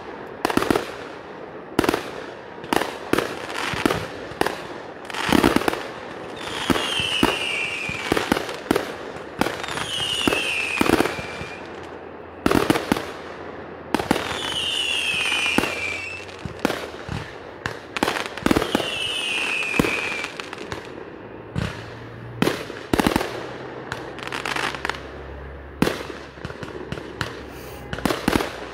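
Fireworks going off in a rapid, irregular string of sharp bangs and crackles. Four whistles falling in pitch, each about a second and a half long, cut through in the first two-thirds.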